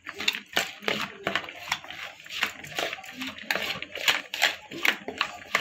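A hand mixing raw shredded cabbage and chopped vegetables in a plastic bowl: a quick, uneven run of crisp rustles and crunches as the pieces are tossed and squeezed.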